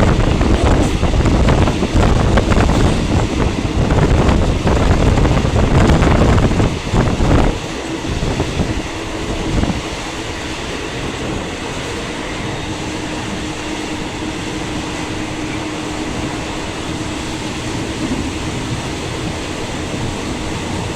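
Passenger train running, heard through the open window of a fan-cooled carriage: loud rushing wind and wheel-on-rail rumble that drops abruptly to a quieter, steadier running noise about a third of the way in.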